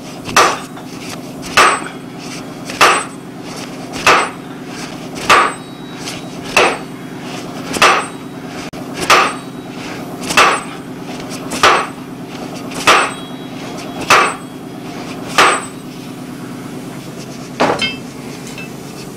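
A 14-pound sledgehammer pounding a hot steel workpiece seated in an anvil block: about thirteen heavy, evenly spaced blows, roughly one every second and a quarter. The blows are upsetting the shank of a hardy tool to form its shoulder. They stop before a lighter double knock near the end, over a steady hum.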